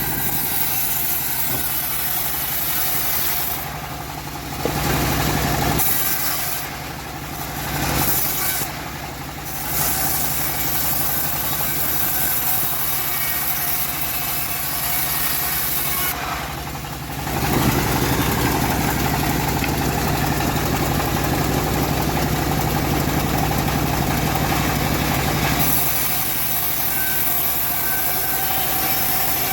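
Homemade bandsaw mill running with a steady machine drone and a high hiss from the blade sawing teak. The hiss drops out briefly several times and is louder for a stretch in the second half.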